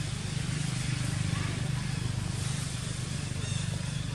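Steady low drone of an engine running, with an even fine pulse and a broad hiss over it.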